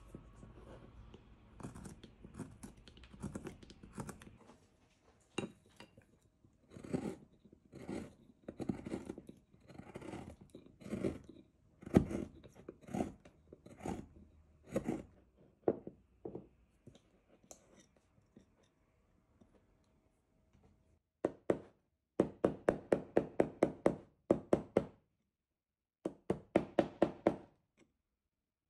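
Hand-pushed gouge cutting hard zelkova wood: crisp, uneven cuts and scrapes about once a second, each chip shearing off. From about three-quarters of the way in, two runs of quick, very even taps, about seven a second.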